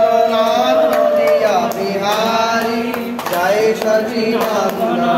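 A group of men and women singing a devotional chant together in long, drawn-out notes, with hand claps keeping time.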